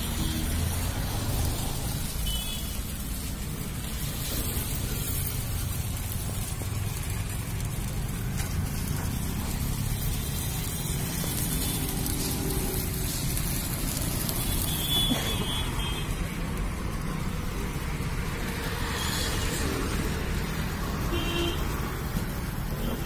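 Steady street traffic noise with a low rumble and a hiss, broken by a few short high tones.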